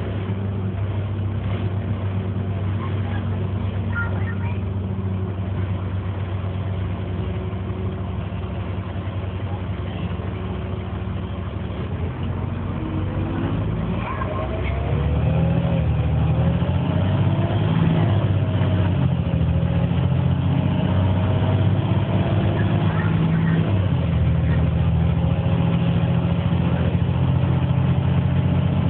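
Volvo B7LA articulated bus heard from inside the passenger saloon: its diesel engine running steadily. About halfway through it gets louder as it pulls harder, with a rising whine over it. There is a short break near the end, then the engine pulls again.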